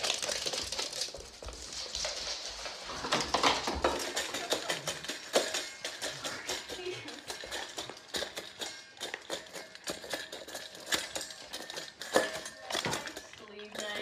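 A stainless steel dog bowl clinking and rattling in rapid, irregular knocks as a dog feeds from it.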